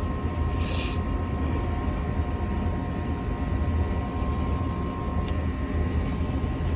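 A steady low mechanical hum with a faint high whine, and a short hiss about a second in.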